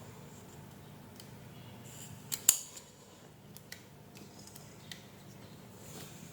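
Light clicks and taps of small hand tools working on an opened power bank's battery leads and circuit board, with one sharper click about two and a half seconds in.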